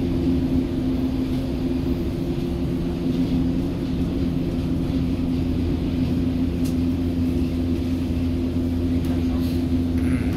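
Hamburg U-Bahn DT5 train running, heard from inside the passenger car: a steady hum from the drive with rolling noise beneath, holding an even pitch at constant speed.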